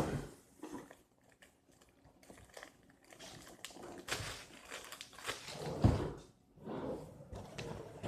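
Toy packaging being handled: irregular crinkling and rustling with light knocks, and a dull thump about six seconds in.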